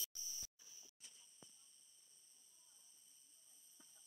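Steady high-pitched insect chirring, like crickets, broken by two short dropouts and cutting out about a second in. After that there is near silence, with only a faint trace of the chirring.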